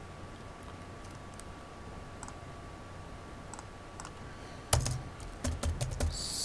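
Computer keyboard typing: a few faint, scattered key clicks, then a quicker, louder run of keystrokes in the last second and a half as a query is typed.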